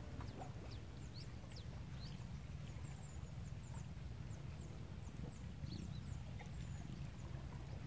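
Riverside ambience: a steady low rumble under many short, high bird chirps, with a thin steady high-pitched whine.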